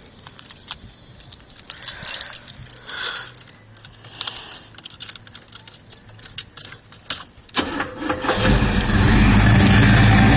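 Car keys jangle and click in the ignition. About eight seconds in, the 1984 Monte Carlo SS's blueprinted V8 cranks and fires, then settles into a loud, steady run through new 3-inch exhaust pipes.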